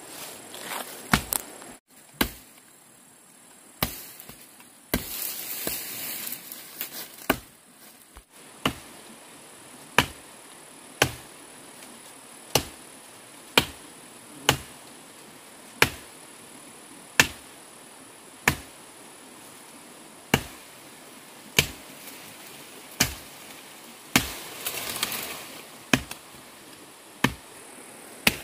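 Repeated chopping blows from a hand tool: irregular at first, then a steady rhythm of about one blow a second from about nine seconds in, over a steady high hiss.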